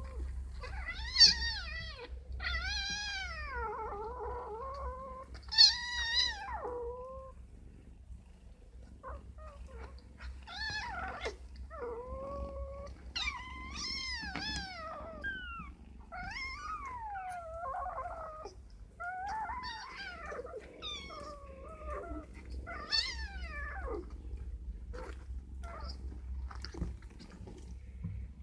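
Domestic cats meowing over and over: more than a dozen high, wavering mews, each up to about two seconds long, with short pauses between them.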